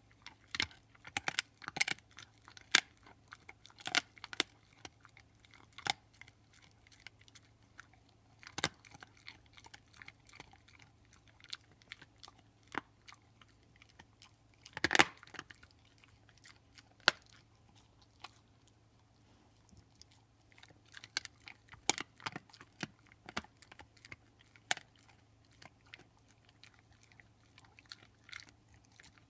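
Pit bull gnawing on a beef bone: irregular crunches and sharp cracks of teeth on bone. The loudest crunch comes about halfway through, followed by a short lull before the chewing picks up again.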